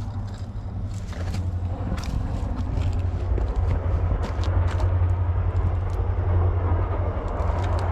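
A passing train: a rumble that swells from about two seconds in and holds, with scattered clicks over a steady low hum.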